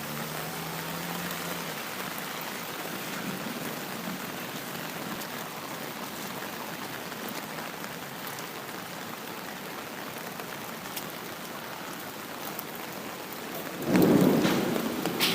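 Steady rain falling, with a sudden loud clap of thunder near the end that fades over a second or so.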